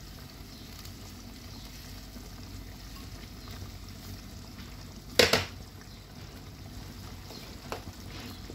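A pot of tomato and chicken stew simmering on a gas burner with a steady low bubbling and sizzling. A single sharp clack about five seconds in and a lighter click near the end come from kitchenware being handled.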